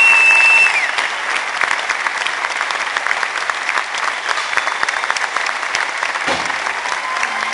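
Theatre audience applauding, dense steady clapping from a large crowd, with a high whistle in the first second.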